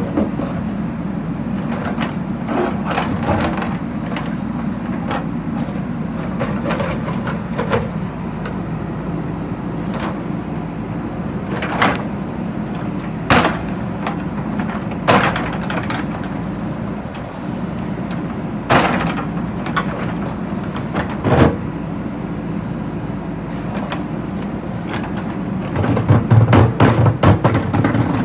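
JCB backhoe loader's diesel engine running steadily, with sharp knocks and cracks of the bucket striking and breaking brick and stone every few seconds. Near the end comes a louder burst of heavy, low pulsing.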